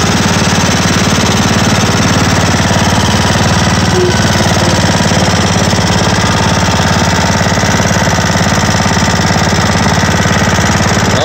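Simplicity Regent riding mower's swapped-in engine running steadily with an even, rapid beat while the tractor is driven.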